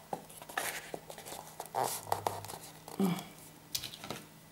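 Cardboard and paper being handled, giving a few soft, brief rustles and light taps spread out in time.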